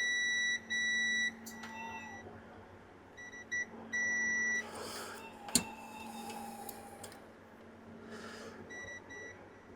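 Multimeter continuity beeper sounding in several separate beeps, some short and some held for about half a second, as the probes find pins shorted to ground. A sharp click of a probe comes about halfway through.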